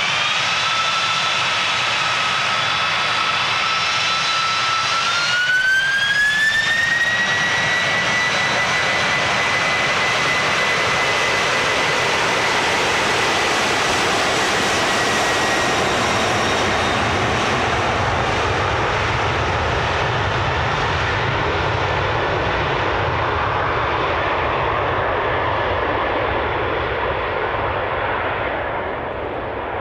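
Boeing 747-400's four jet engines spooling up to takeoff power. A fan whine rises, climbs again about five seconds in, then holds and fades under a growing roar and rumble as the airliner accelerates down the runway.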